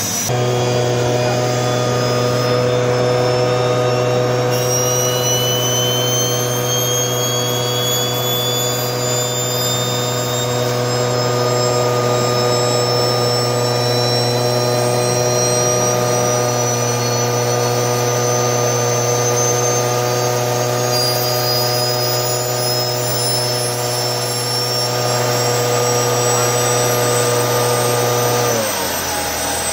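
Homemade turbo stove running: a turbocharger on a wood-fired barrel stove spins with a high whine that slowly climbs in pitch, over a steady loud droning hum. Near the end the hum winds down and drops away.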